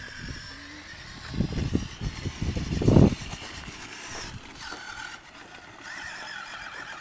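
Electric RC truck's motor whining steadily while the truck drives through a puddle, with a run of loud low rushes and thumps between about one and three seconds in, loudest near the end of that run.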